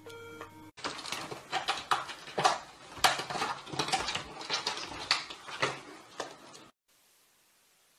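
A cat squeezing and scrambling through a cat flap: a rapid, irregular run of clattering knocks and rattles from the flap and its frame that lasts about six seconds and stops abruptly. A brief pitched tone comes just before it.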